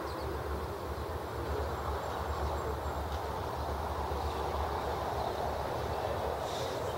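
Steady outdoor rushing noise with wind buffeting the microphone in a low, uneven rumble.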